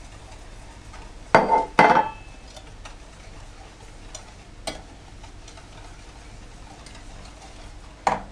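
A metal measuring cup clinking twice against a stainless saucepan, with a short ring, as sugar is emptied into melted butter. A whisk then stirs in the pan with a few light ticks and one last sharp clink near the end.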